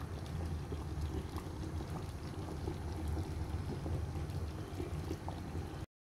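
Steady low rumble of kitchen background noise with a few faint ticks, cutting off abruptly near the end.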